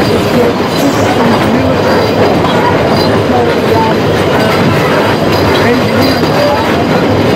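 Narrow-gauge (2 ft 6 in) passenger carriages rolling past close by: a steady, loud rumble and clatter of steel wheels on the rails.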